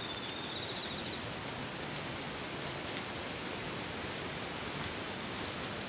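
Steady, even outdoor background hiss in an open summer field, with a faint thin high whistle that rises slightly during the first second.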